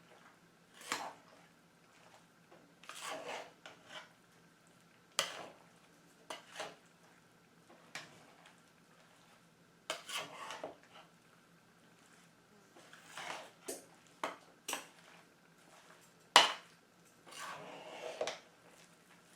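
A spoon clinking and scraping against a pot as dry mix is stirred into melted butter and pears, in irregular bursts with one sharp knock about two-thirds of the way through.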